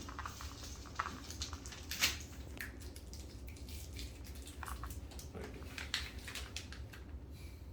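Packaging being handled: scattered rustles, light clicks and taps, with one sharper knock about two seconds in.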